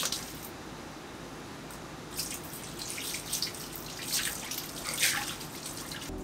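Water poured in a steady stream onto a chrome wheel, splashing on the metal and tyre as it rinses off the steel-wool residue, with sharper splashes from about two seconds in.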